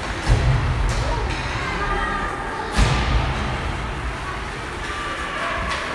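Ice hockey play along the rink boards: two sharp thuds against the boards, about a third of a second in and just before the middle, over players and spectators calling out in the echoing arena.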